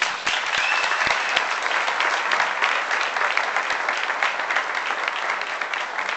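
Small crowd applauding: many hands clapping, starting suddenly and holding at a steady level.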